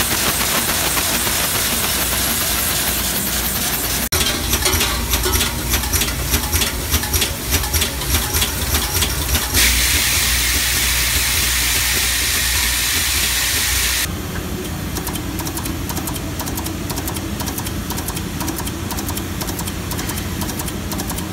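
Blind rivet assembly machines running: a fast, dense clatter of the mechanism for the first ten seconds or so, then a loud steady hiss for about four seconds, then a quieter steady run with fine rapid ticking.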